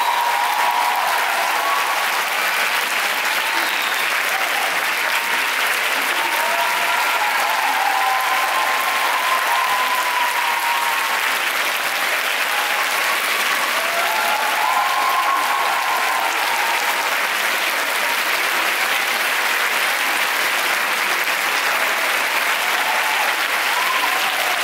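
Concert-hall audience applauding steadily after a choir performance, with some cheering voices over the clapping.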